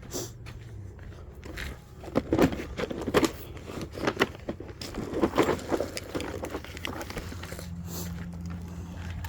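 Irregular plastic knocks, clicks and rustling as an Evenflo 360 rotating car seat is picked up and handled, busiest from about two seconds in.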